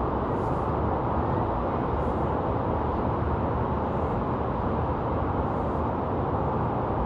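Steady wind rushing over the microphone of an open-air ride seat held about 400 feet up a drop tower, an even low rumble with no change.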